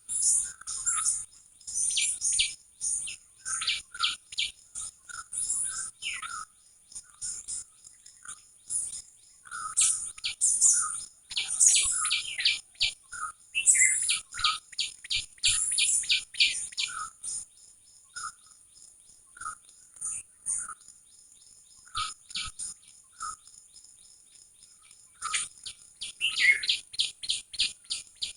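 Small birds chirping: rapid series of short, high chirps in bouts, mixed with repeated lower single notes. The chirping thins out to scattered notes for several seconds past the middle, then picks up again near the end.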